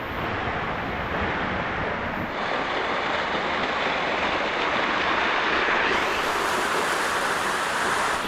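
Steady rush of falling water, growing louder about two seconds in and again near six seconds.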